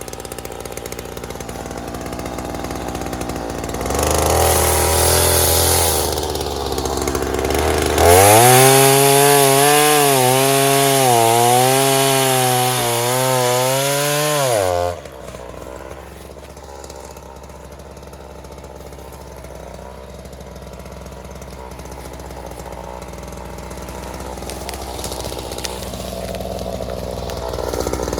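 Two-stroke Ryobi gas chainsaw idling, then revved up about four seconds in. From about eight seconds in it runs at full throttle for about seven seconds, cutting wood, its pitch wavering up and down under load. It then drops abruptly back to a low, steady idle.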